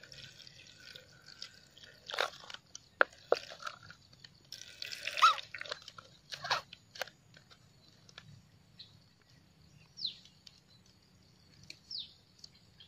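Milk dripping and splashing into a plastic basin as a paper milk carton is squeezed and crinkled, giving scattered soft drips, crackles and clicks.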